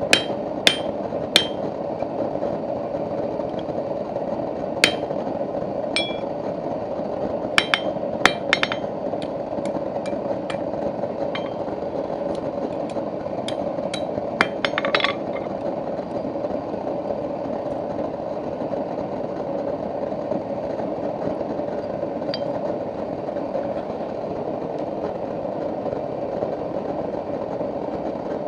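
Scattered sharp hammer strikes and metallic clinks on steel, about a dozen in the first half, over a steady roar from a running forge that continues alone afterwards.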